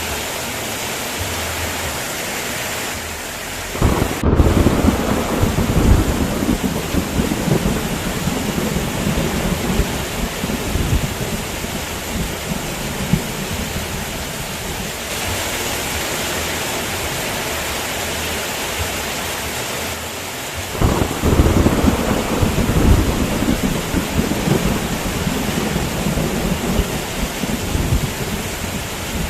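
Steady heavy rain with two long rolls of thunder. The first breaks in about four seconds in and rumbles away over some ten seconds; the second starts about twenty-one seconds in and is still rumbling near the end.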